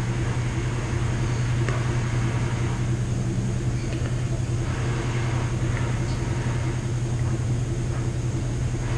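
Steady mechanical hum of household machines running together: a washer, a dryer and a 3D printer. A constant low hum lies under an even whirring noise.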